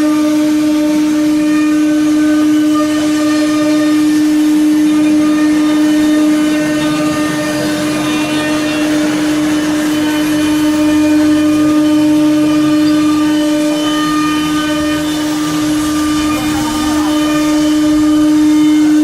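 9 kW HQD spindle of a CNC router running at speed, a steady whine with overtones, while the tool cuts, its rough cutting noise rising and falling through the middle.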